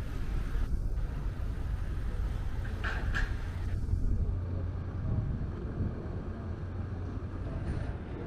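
City street ambience: a steady low traffic rumble, with a brief higher-pitched sound about three seconds in.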